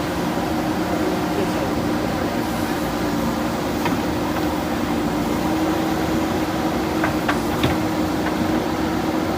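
A JCB backhoe loader's diesel engine running steadily with an even hum, with a few light knocks about seven seconds in.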